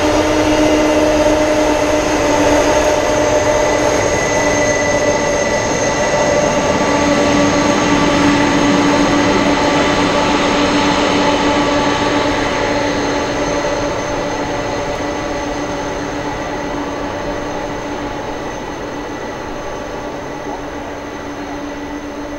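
Boeing 747-400's four turbofan engines running at low power with a steady whine over a rushing noise as the jet taxis. The sound fades gradually from about halfway through as the aircraft moves away.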